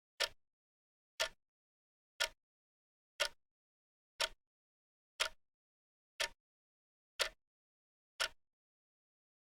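Clock ticking steadily, one sharp tick a second with silence between the ticks.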